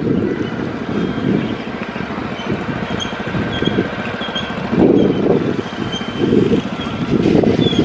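Wind buffeting the microphone in uneven gusts over the running engine of a motor scooter being ridden. A string of short high chirps comes through in the middle.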